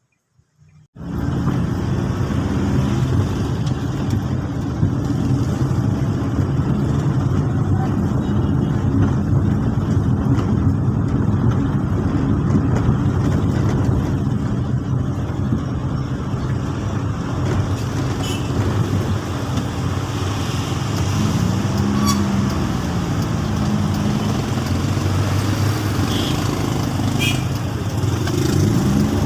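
Motor vehicle running, a steady engine and road rumble that starts suddenly about a second in; its pitch rises and falls a few times near the end.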